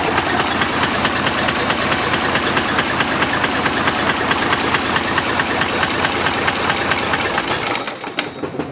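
Deutz BF12L413F air-cooled twin-turbo V12 diesel running steadily with a rapid, even beat. About eight seconds in it is shut off and its sound dies away, with one last knock.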